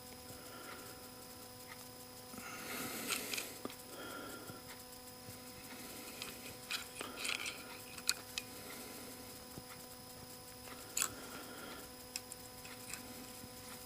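Faint small metal clicks and short scrapes of a small steel split ring being worked open by hand with a tool, in scattered bursts, the busiest about three seconds in.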